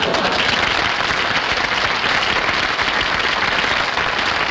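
Studio audience applauding: a steady, dense clapping that holds at an even level.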